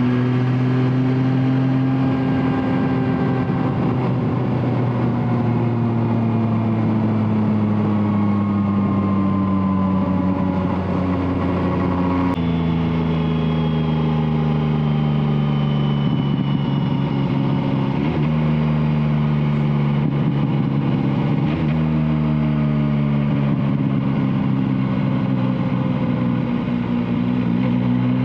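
Yamaha Tracer 9's 890 cc three-cylinder engine running through an Akrapovic exhaust while riding, its pitch slowly sinking as the revs fall. The pitch steps suddenly about twelve seconds in, as at a gear change, and rises again near the end as it accelerates.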